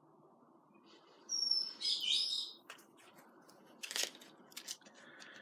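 A brief high bird chirp about a second in, followed by a few sharp clicks, one louder near the four-second mark.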